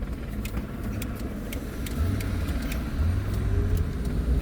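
Car engine and road rumble heard from inside the moving car, a low steady drone that swells a couple of times as it manoeuvres, with a few scattered light ticks.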